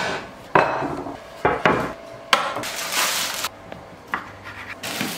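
Kitchen handling sounds: a cupboard door and crockery clattering, then a knife cutting cherry tomatoes on a wooden chopping board. It comes as a string of separate knocks and clatters, with a longer scraping rustle about halfway through.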